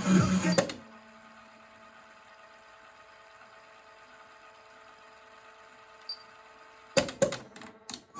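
Car stereo between programmes: a faint, steady electrical hum with hiss and thin steady tones. A few short crackling bursts come near the end.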